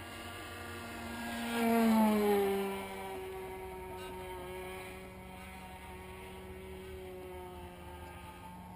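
Two-stroke MDS 10cc model engine, converted from nitro to petrol, running steadily on an RC delta wing. It grows louder about two seconds in, with its pitch dropping as it goes by, then settles back. The owner says the engine would not come up to full revs.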